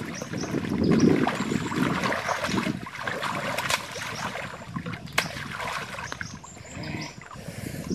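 Water splashing and sloshing as a person wades waist-deep and gropes underwater among mangrove roots, with the loudest splash about a second in.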